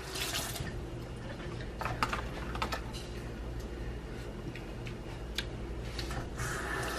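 Scattered light clicks and taps from handling kitchen utensils and containers, a few sharp ones in the middle, over a steady low hum.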